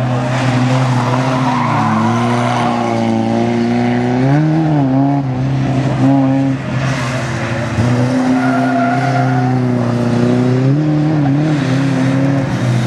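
Bilcross race cars' engines running hard at high revs past the track, the pitch dipping briefly twice as a driver lifts off, with tyres skidding on the loose, dusty surface.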